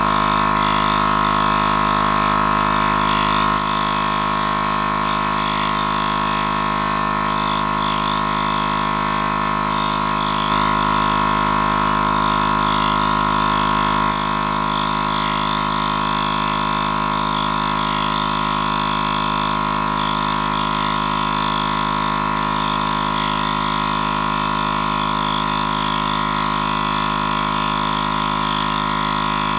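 Air compressor pump running steadily: a loud, even drone with a slight change in level a few times.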